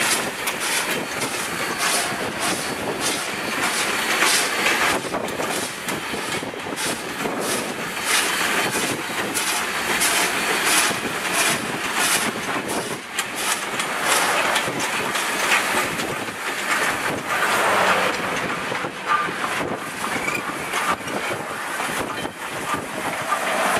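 1907 Baldwin 2-6-0 steam locomotive running under steam, its exhaust chuffing in an even beat of about two a second.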